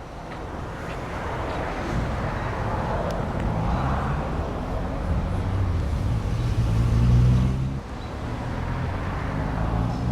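2008 Pontiac G6 GT's 3.5-litre V6 idling, heard from the exhaust: a steady low exhaust hum that swells briefly and dips near the end.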